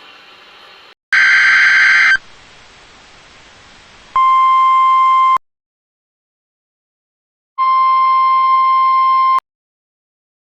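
NOAA Weather Radio alert signals over faint radio static: about a second in, a one-second burst of screeching SAME digital header data, then the steady 1050 Hz warning alarm tone sounding twice in short stretches with dead silence between them.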